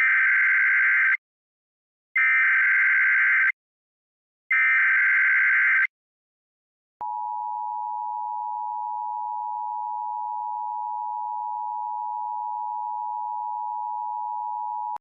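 Emergency Alert System tones: three short bursts of the digital SAME header, each about a second long and a second apart, followed about seven seconds in by the steady two-tone EAS attention signal.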